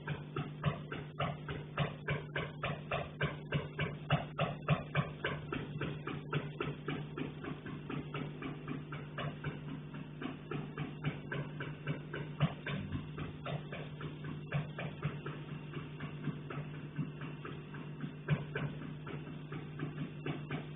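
Rapid tapping and knocking from the attic and roof above, about three or four knocks a second, louder at first and softer later with a few single louder knocks, over a steady low hum.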